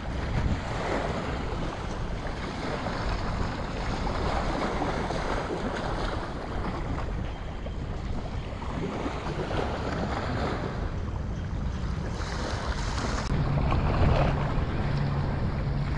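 Wind buffeting the microphone over small waves washing up on a sandy beach. About thirteen seconds in, a steady low hum joins.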